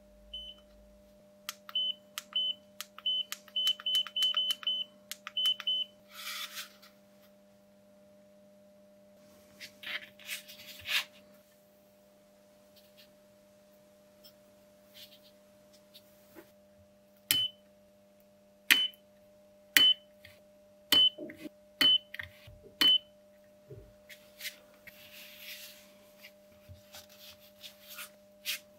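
AWithZ handheld battery spot welder firing onto metal connection strips on 18650 cells: each weld is a sharp snap with a short high beep. There is a quick run of a dozen in the first six seconds, then six more about a second apart in the second half, with handling rustles between them over a faint steady hum.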